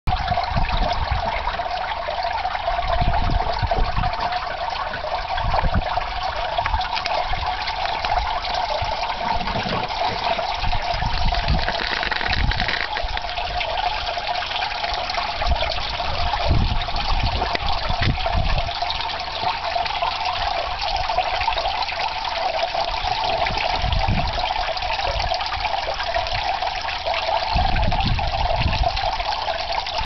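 Meltwater trickling and dripping from a melting ice edge hung with icicles, a steady running-water sound throughout. Several short low rumbles cut in now and then, the longest near the end.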